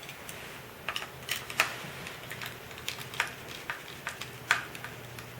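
Irregular sharp clicks and taps of a Kia Optima door handle and tools being handled as the handle is taken apart, about eight in all, over a faint steady low hum.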